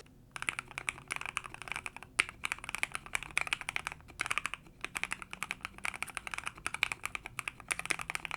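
Fast typing on an Ajazz AC081 aluminium gasket-mount keyboard fitted with Ink V2 switches and PSA keycaps, its case foam-, force-break- and tape-modded: a dense run of key clacks with short pauses about two and four seconds in.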